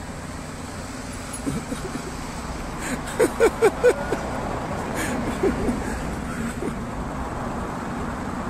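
Steady city street traffic noise, with a man's laugh about three seconds in: four quick, evenly spaced bursts.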